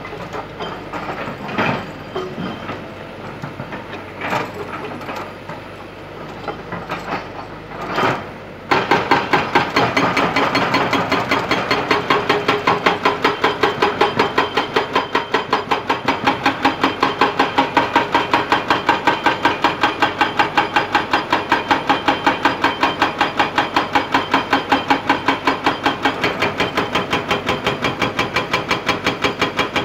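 Hydraulic rock breaker on a Kobelco excavator hammering stone. A few scattered knocks come first; then, about nine seconds in, the chisel settles into fast, steady rapid-fire hammering.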